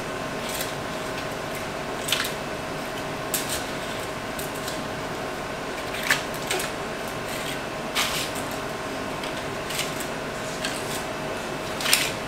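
Paper cupcake cases rustling and tapping as they are put into a metal muffin tin, in short separate bursts every second or two, over a steady background hum.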